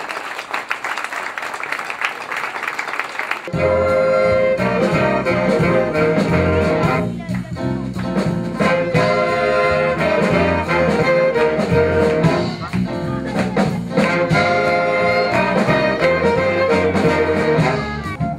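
Applause, then about three and a half seconds in a youth jazz band starts playing: violins, saxophones and clarinets with a violin soloist out front, over a steady low beat.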